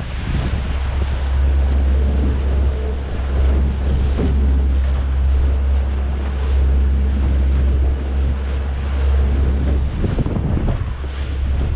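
Wind buffeting the microphone and waves splashing around a small boat at sea, over a steady low hum that eases off about ten seconds in.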